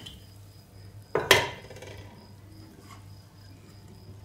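Metal pressure cooker lid clanking once, sharply, about a second in, just after it is lifted off the cooker, with a short ring after it. Otherwise only a faint steady hum.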